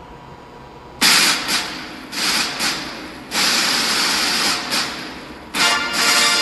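Four sudden loud hissing noise bursts, each fading over about a second, with music starting near the end.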